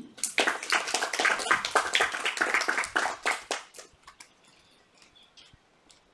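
A small group of children applauding, a quick patter of separate claps that dies away after about three and a half seconds, leaving a few scattered claps.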